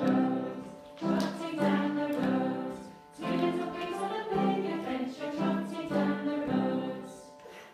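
Music: a melody of held notes in short phrases, fading out near the end.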